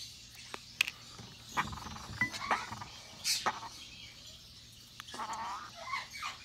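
Young African grey parrot giving a few short cries while it is held, with small clicks and rustles from handling.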